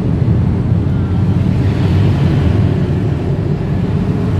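Car driving, heard from inside the cabin: a steady low rumble of engine and tyre noise, with a faint hiss swelling about two seconds in.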